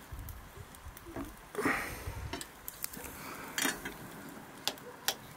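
A cooking utensil knocking and scraping against a wok as greens are stirred, with a few sharp clicks scattered through.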